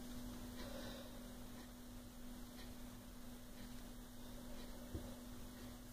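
Quiet room tone with a faint, steady low hum on a single pitch, and a soft click about five seconds in.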